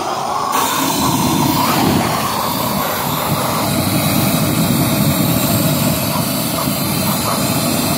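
Propane weed-burner torch opened up about half a second in, its flame jetting with a steady, loud rushing noise.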